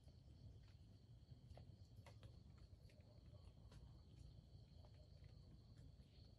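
Faint, steady high-pitched drone of insects, with scattered soft ticks and clicks.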